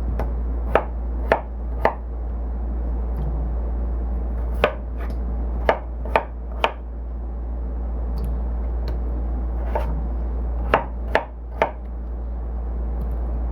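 Knife chopping vegetables into bite-size pieces: about a dozen separate sharp strikes at an uneven pace, some in quick runs of two or three, over a steady low hum.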